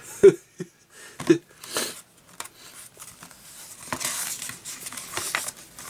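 Glossy paper pages of a hardbound Blu-ray Digibook booklet being handled and turned: rustling and sliding paper, with two short knocks in the first second or so and the longest rustle a little after halfway.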